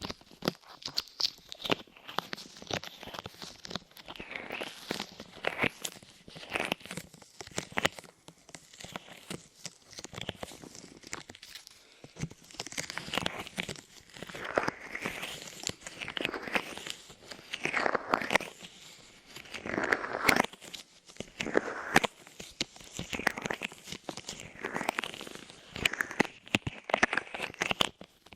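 Light clay being squished and pressed against microphone ears close up: sticky crackling and rustling, coming in repeated swells every second or two.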